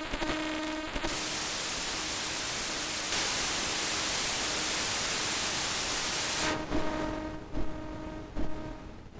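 Teenage Engineering OP-1 Field synthesizer playing a held note, then a steady wash of white noise for about five seconds that gets louder about three seconds in, cutting back to short pitched notes that fade out near the end.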